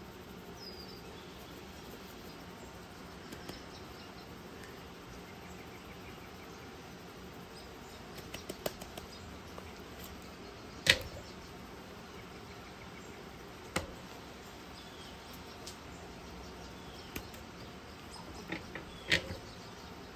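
Faint steady background hum with a few sharp clicks and knocks as a seasoning shaker is shaken over a raw turkey and the bird is lifted and turned on a wire rack over a metal sheet pan.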